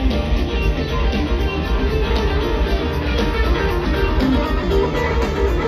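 Live rock band playing through a concert PA, heard from the crowd: electric guitar over a heavy, steady bass.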